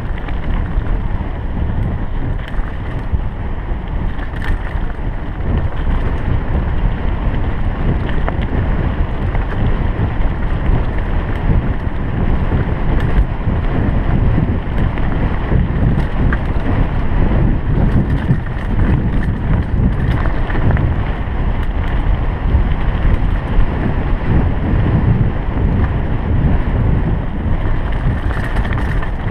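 Mountain bike rolling fast over a loose, stony dirt track: a steady low rumble of tyres on gravel with wind buffeting the chest-mounted camera's microphone, and scattered small clicks and rattles from stones and the bike.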